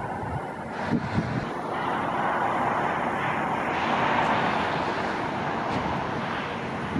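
Outdoor traffic noise with a vehicle passing: its sound swells from about two seconds in, peaks near the middle and fades. Wind buffets the microphone near the start.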